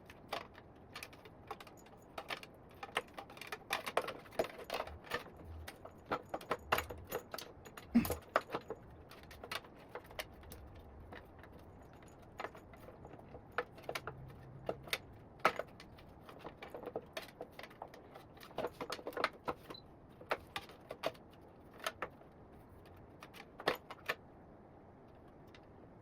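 Irregular small clicks, taps and rattles of parts and wiring being handled during hands-on e-bike reassembly.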